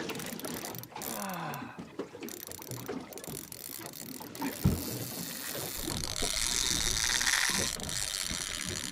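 Spinning reel being wound against the weight of a hooked fish, its gears giving a run of rapid clicks and rattles. A steady hiss rises in the second half.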